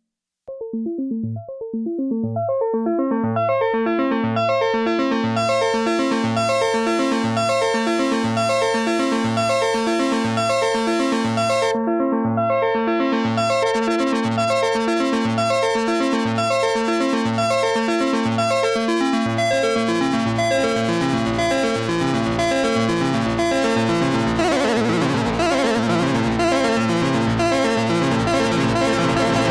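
Roland Juno 60 analog synthesizer playing a repeating arpeggiated pattern over a low note that pulses about once a second. Its filter sweeps open over the first few seconds, closes briefly near the middle and opens again, and the sound grows denser near the end.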